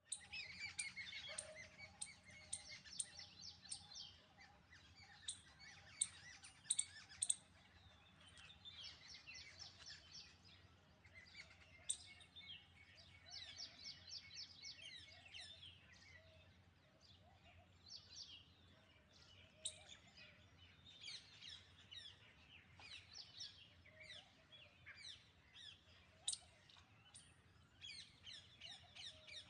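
Many birds chirping and twittering at once, faint, with quick high calls and short trills overlapping throughout, over a faint steady low hum.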